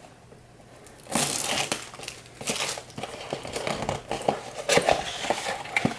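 Crinkling and crumpling of packaging as a sealed trading-card box is torn open, an irregular run of handling noises starting about a second in.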